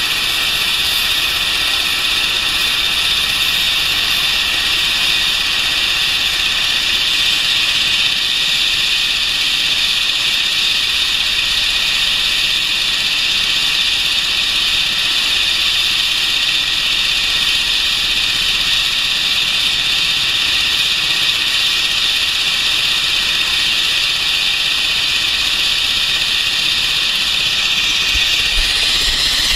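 The Leonardo AW139's PT6C-67C turboshaft engines running during start-up: a steady high turbine whine and hiss as the main rotor turns slowly. A low rumble comes in near the end.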